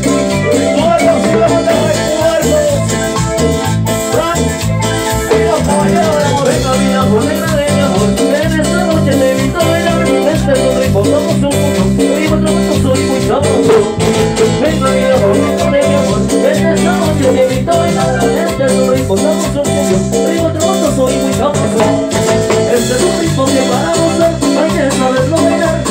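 Live Latin dance band playing loud amplified music with a steady, repeating beat.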